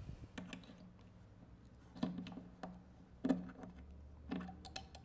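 Scattered light clicks and knocks of hands handling small hardware and wood on a workbench while a screw-in hook is fitted into a wooden spice rack.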